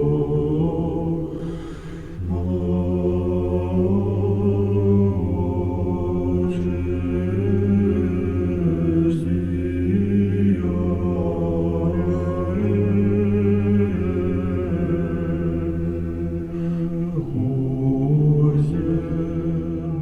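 Choral chant: a choir singing slowly in long held chords over deep bass voices, the chords shifting every second or two.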